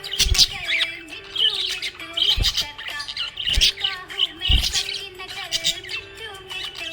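Small pet parrots chirping and squawking in quick, overlapping calls over background music, with a few low thumps.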